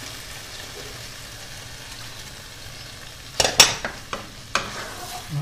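Onion and tomato sauce sizzling steadily in a sauté pan on a gas hob. From about three and a half seconds in, a wooden spoon clacks and scrapes against the pan a few times as the sauce is stirred.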